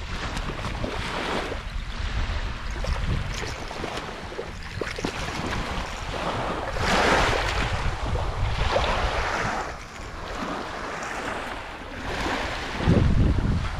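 Small waves lapping and washing up onto a sandy beach, swelling louder a couple of times. Wind buffets the microphone, most strongly near the end.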